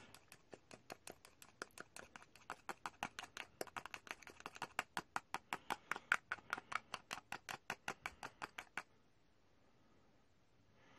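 Thin metal stirring rod ticking against the wall of a small plastic cup as gold model paint is stirred briskly: a fast, even run of faint clicks, about six a second, that stops a couple of seconds before the end.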